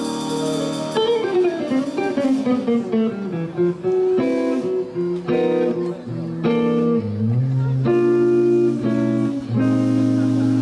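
Live instrumental band playing: electric guitar leads the tune, with a falling run of notes a second or so in, over bass guitar, drums and keyboard.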